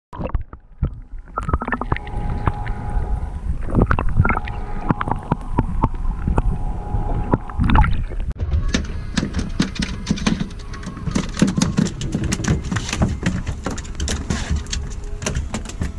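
Muffled underwater sound with a steady hum for the first half. After about eight seconds it changes to rapid sharp slaps and knocks, as freshly caught small mahi-mahi (chicken dolphin) flop about on a boat deck.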